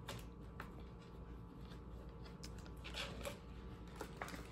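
Faint rustling and soft clicks of plastic sheet-protector pages being handled and turned in a three-ring binder, a few scattered sounds with the clearest about three seconds in, over a low steady room hum.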